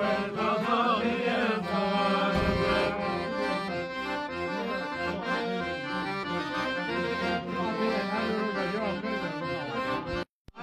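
Piano accordion playing a folk tune, a stepped melody over a regular bass rhythm. A man's singing voice is heard with it for the first two seconds or so. The sound cuts out briefly just before the end.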